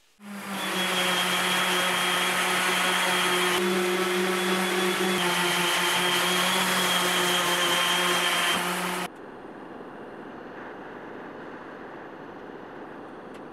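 Electric random orbital sander running steadily on an oak-and-epoxy clock face, a loud hum with a whine and hiss. It cuts off suddenly about nine seconds in, and a quieter steady hiss of a gas torch flame follows.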